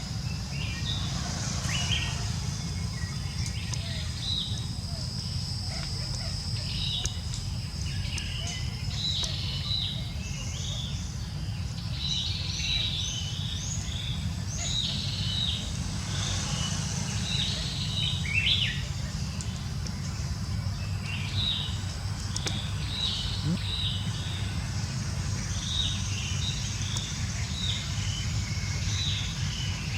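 Small birds chirping: many short, high chirps come in loose clusters throughout, over a steady low rumble.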